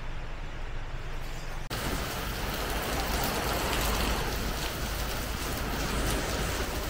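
Heavy tropical rain pouring onto a wet paved street, a dense, steady hiss. It comes in abruptly a little under two seconds in, after a quieter stretch of low rumble.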